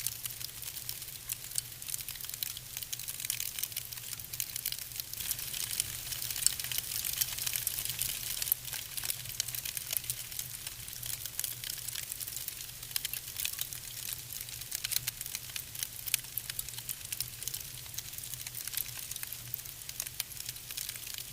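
Wood fire burning in a fireplace: a steady hiss with many small, irregular crackles and pops from the burning logs.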